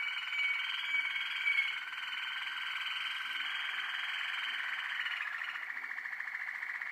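Young Waterslager (Malinois) canaries singing: a continuous song of rolling, water-like notes. It opens with short high whistles, and about five seconds in it changes to a fast, even trill.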